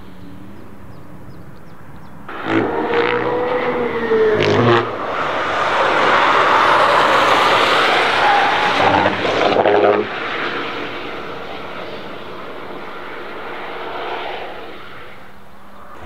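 Rimac Nevera electric hypercar passing at speed on track. A whine rises and falls, then there is a loud rush of tyre and wind noise that drops off suddenly about ten seconds in, followed by a quieter rush fading away.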